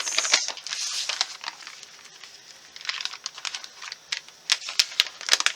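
Paper craft pieces rustling and crinkling as they are handled and sorted by hand, in uneven bursts of small crackles with a quieter stretch in the middle.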